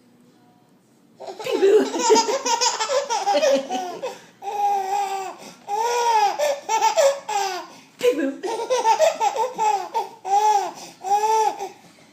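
A baby laughing, high-pitched and giggly, in a long string of short bursts that starts about a second in, with brief breaks around four and eight seconds in.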